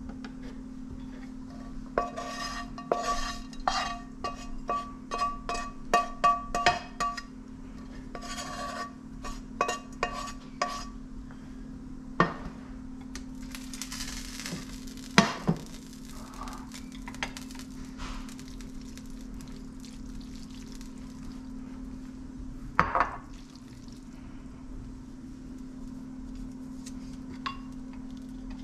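Cooking utensils clinking and knocking against cookware while food is stirred and handled: a quick run of ringing clinks for several seconds, then scattered knocks, the loudest about halfway through. A steady low hum runs underneath.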